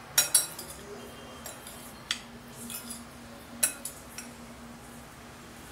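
Spoon stirring a chunky mix of boiled chickpeas, potato, onion and tomato in a glass bowl, clinking sharply against the glass about six times, two together at the start and a few more about two and four seconds in, each clink ringing briefly.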